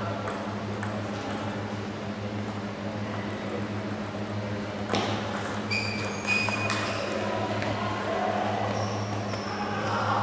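Table tennis ball clicking sharply off bat or table, with a few short high squeaks between about five and seven seconds in, over the steady low hum of a sports hall.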